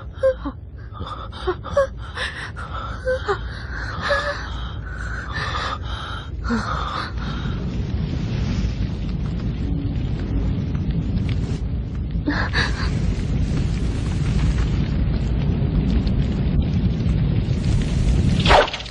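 Film sound mix: gasping breaths over music for the first few seconds, then a steady low rumble of fire. A boom comes about twelve seconds in and another near the end.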